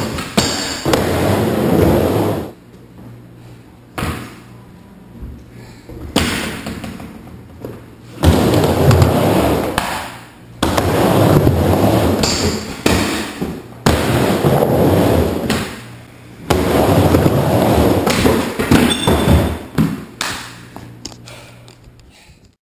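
Skateboard riding a wooden mini ramp: the wheels rumble across the plywood in loud stretches, broken by sharp clacks and slams of the board on the ramp, with quieter gaps between runs. It fades out near the end.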